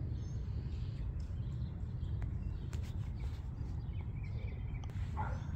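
Quiet outdoor ambience: a steady low rumble with a few faint, short, high bird chirps.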